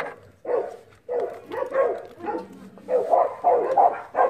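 Dogs barking repeatedly. The barks are scattered at first, then come about three a second near the end.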